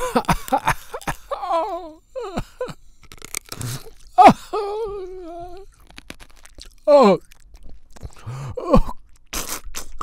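A person crunching and chewing glass: a run of sharp crunches between bites, broken up by pained groans, gasps and whimpers that slide down in pitch.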